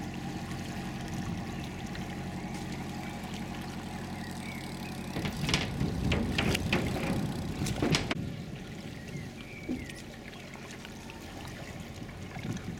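Kayak paddle blades splashing and dripping as a kayaker paddles close by, a burst of several splashes in the middle lasting about three seconds, over a steady low engine hum that fills the first part.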